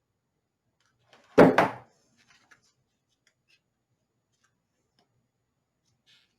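A single sharp knock about a second and a half in, something hard striking a work surface, followed by a few faint ticks.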